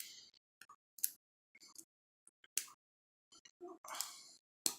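A high-reach lock pick clicking and scraping against the pins inside a Brinks four-pin padlock while the lock is held under tension. There are faint, irregular light clicks and short scrapes, with a sharper click near the end.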